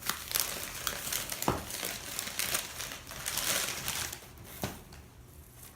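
A packaging wrapper crinkling and crackling as it is handled, with a few sharper clicks. It goes quieter about four seconds in.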